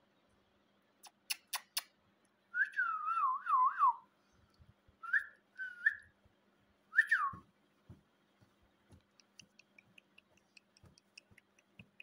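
Three sharp clicks, then a wavering whistle that dips and rises several times, followed by three short rising whistled chirps and a run of faint quick ticks near the end.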